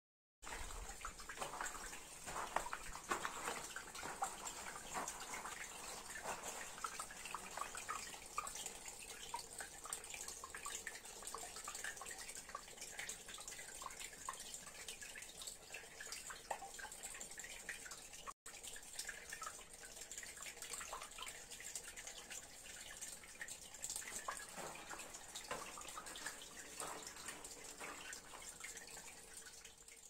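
Faint trickling and dripping of spring water seeping into a pool at the bottom of a narrow rock gully, with small scattered drips throughout.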